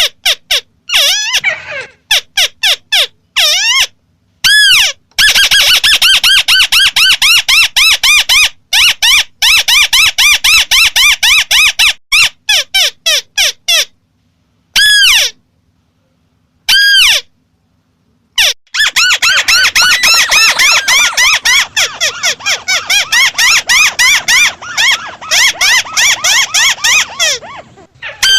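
White-browed crake (Amaurornis cinerea) calling: fast runs of loud, nasal, arched notes, broken by short silent gaps, with two lone notes around the middle.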